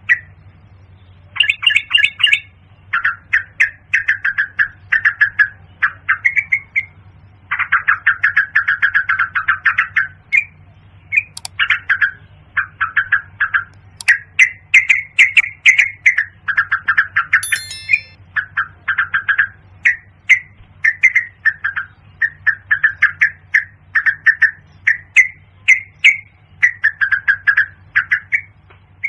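Yellow-vented bulbul calling: quick bubbly phrases of chattering notes, one after another with short gaps, over a steady low hum.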